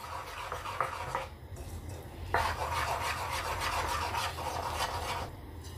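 Plastic spoon stirring thick unniyappam batter in a bowl, scraping and swishing against the bowl's sides. The stirring eases off briefly about a second and a half in, then picks up again, louder and steady, and stops just before the end.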